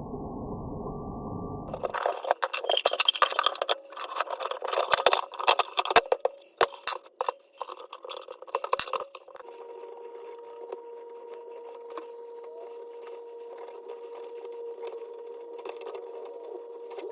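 Metal parts clinking and knocking in quick, irregular strikes as a refrigerator compressor and an old electric motor are pulled apart for scrap. After a muffled rumble at the start, the knocks are the loudest thing, and a faint steady hum follows for the last several seconds.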